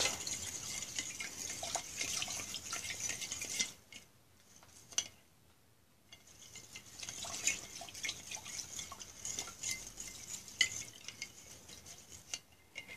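A thin stirring rod scraping and ticking against the inside of a glass jar as shellac flakes are stirred into ethanol. It stops for two or three seconds about four seconds in, then the stirring resumes.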